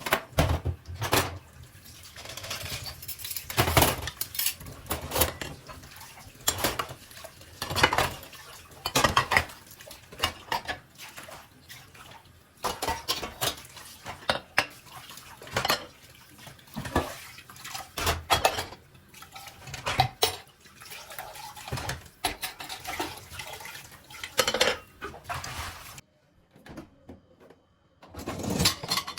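Dishes and cutlery clinking and clattering as they are handled, a steady stream of sharp knocks with a brief lull near the end.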